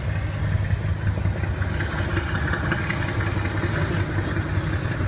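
Diesel locomotive engine running with a steady low rumble.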